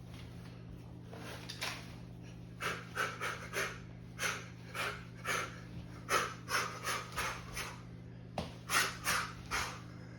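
Rapid panting breaths in runs of several, about two to three a second, over a steady low hum.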